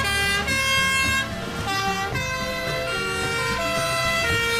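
Two-tone sirens of several fire trucks in a convoy sounding together, their steady high and low notes stepping back and forth about every half second and overlapping out of step with each other.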